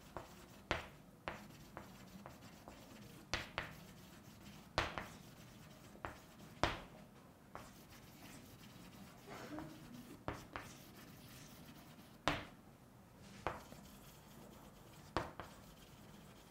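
Chalk writing on a chalkboard: a string of short, separate taps and scratches as letters are written, with quiet gaps between strokes.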